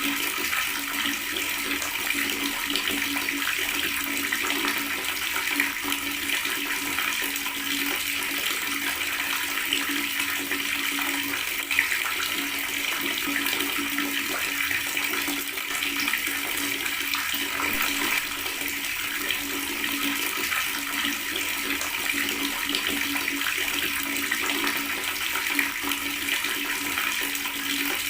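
Water running steadily from a tap, gurgling and splashing without a break.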